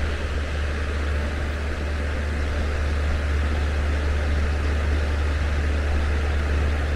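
Steady low machine hum with an even rushing noise over it.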